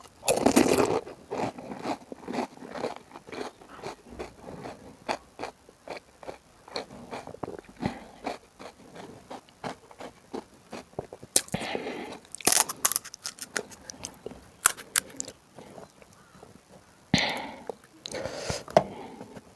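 Pani puri being bitten and chewed: crisp puri shells crunching, then a long run of short, sharp chewing clicks. Louder bursts of crunching come right at the start, again about twelve seconds in and near the end.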